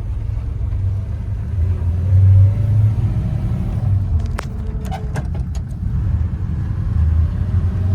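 1946 Hudson Commodore Eight's flathead straight-eight engine running under way, a steady low rumble heard from inside the car. A few sharp clicks come about halfway through.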